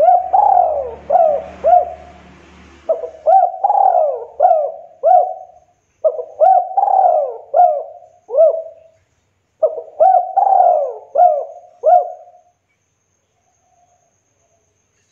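Spotted dove (tekukur) cooing: four phrases of four or five coo notes each, separated by short pauses, stopping about twelve seconds in.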